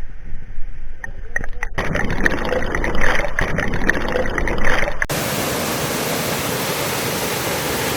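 Arikkamali waterfall's falling water rushing, at first unevenly with a low rumble. About five seconds in it cuts abruptly to a steady, fuller rush.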